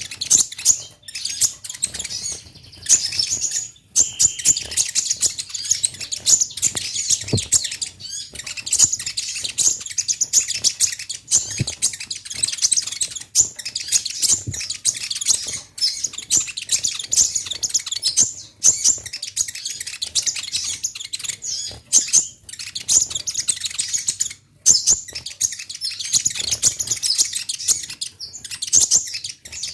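Kolibri ninja sunbird singing a fast, high-pitched, near-continuous chattering of chirps and trills, broken by a few brief pauses; this is a lively song recording played as a lure to draw young males into answering.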